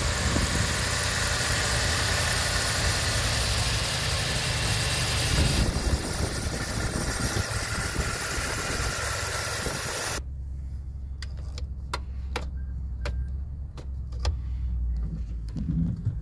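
Ford F-250 pickup engine idling steadily, heard close at the open engine bay. About ten seconds in, the sound turns to a muffled low rumble as heard from inside the cab, with several sharp clicks.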